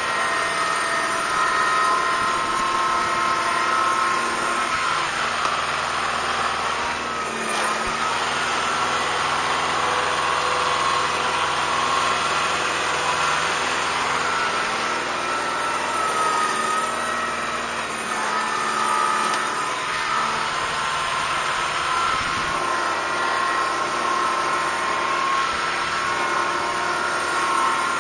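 Kubota M5140 tractor's diesel engine running steadily as it pulls a box blade through loose dirt, its pitch shifting a little as the load changes.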